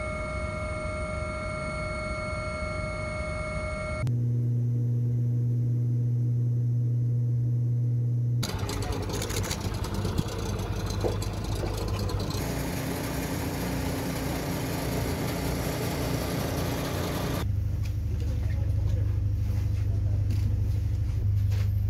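Steady helicopter cabin drone with whining tones for the first few seconds, then a series of steady low engine hums and rushing noise that change abruptly several times.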